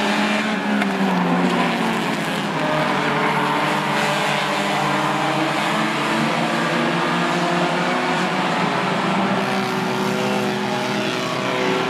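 A pack of four-cylinder compact stock cars racing together, their engines running hard in a steady drone. Several engine notes overlap, each drifting up and down in pitch.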